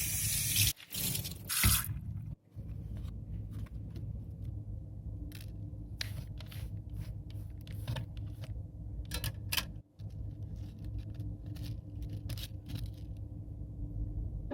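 A short hiss at the start and another about a second and a half in, then scattered small clicks and scrapes over a steady low hum.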